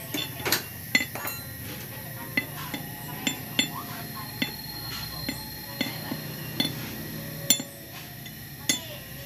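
Light metallic clinks and taps from a hand tool working at the cylinder head of a Honda Revo Absolute motorcycle engine. There are about a dozen at irregular intervals over a steady low hum.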